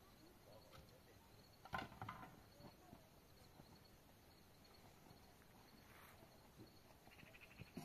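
Near silence with faint, steady, high-pitched insect chirping, typical of crickets at dusk. About two seconds in there is a short knock and scrape.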